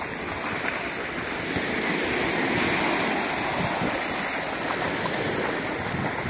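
Small sea waves washing onto a sandy beach: a steady rush of surf in the shallows, swelling slightly midway.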